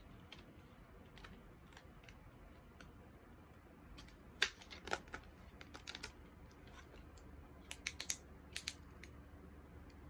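Packaging and paper being handled: scattered small clicks and crinkles, busiest about halfway through and again near the end.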